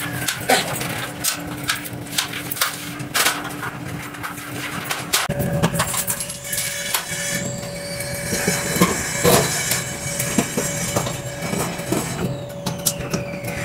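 Scattered knocks and clicks from climbing an aluminium stepladder and pushing up a ceiling tile, over a steady machine hum.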